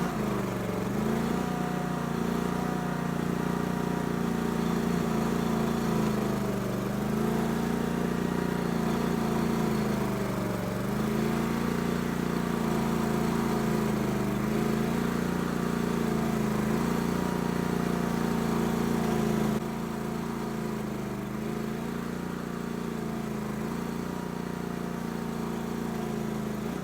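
A Barreto 30-SG stump grinder's Briggs & Stratton Vanguard V-twin engine runs hard, its pitch sagging and recovering about every two seconds as the cutting wheel sweeps across a stump and bites in. The sound gets a little quieter about twenty seconds in.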